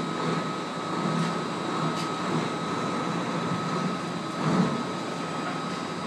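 Roll-off truck's diesel engine running as it maneuvers a compactor container, a steady low hum with a thin steady whine over it and a brief swell about four and a half seconds in.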